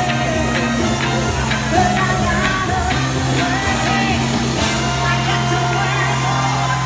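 Live electro-swing band playing through a club PA, heard from within the audience: a steady bass line held under a wavering melody line.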